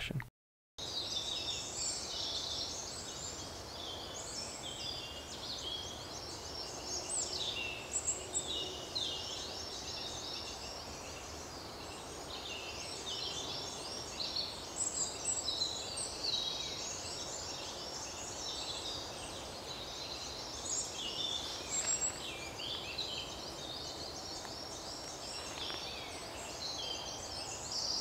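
Dawn chorus of many distant songbirds singing at once, muted and blending together, with coal tit and European robin among them, over steady background noise. It begins just under a second in.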